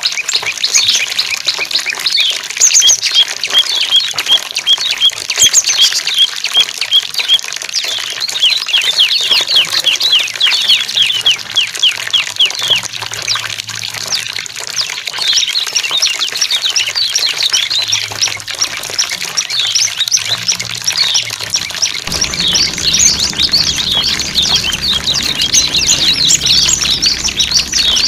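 Small songbirds chirping and trilling in quick, dense runs of high calls, including a rapid string of evenly repeated notes, over the steady rush of running water.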